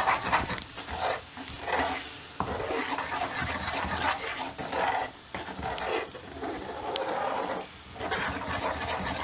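A spoon stirring and scraping thick curry sauce around a pan, in irregular scrapes with a few light knocks against the pan.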